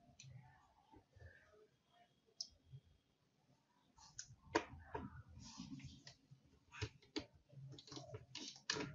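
Faint clicks and scrapes of a screwdriver working at screws in a laptop's plastic bottom case, with hands handling the case; sparse at first, busier from about four seconds in.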